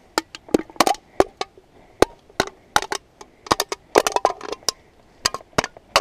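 An old rusty knife tapping and pressing against an empty aluminium beer can, the thin metal clicking and crinkling in a quick, irregular string of sharp taps as the can's opening is bent out.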